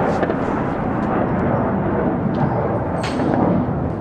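Continuous low rumble rolling on after a heavy explosion, with a faint sharp crack about three seconds in.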